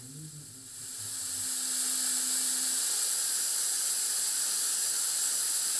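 Steady hiss of compressed air blowing from a milling unit's air injector onto a wax pattern as it is milled, swelling about a second in and then holding even.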